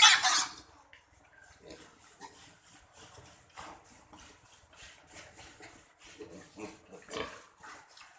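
Piglets vocalising: a loud squeal at the start, then scattered short, quieter grunts, one louder about seven seconds in.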